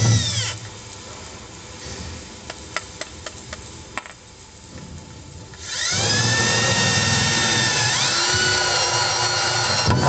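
Corded electric drill with a hole saw cutting into a fibreglass water-tank wall. The motor whine winds down about half a second in, a few light clicks follow, then the drill starts up again about six seconds in and runs with a loud, high whine that shifts in pitch partway through.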